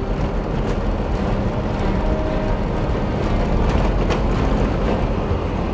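A 4x4 motorhome driving on a gravel road, heard as a steady low rumble of engine and tyres.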